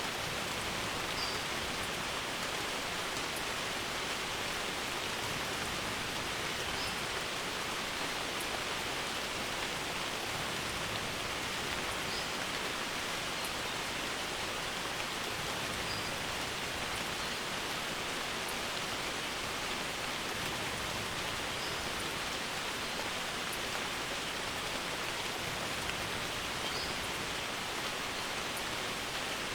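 Steady rain falling on a barn roof, an even hiss that does not change.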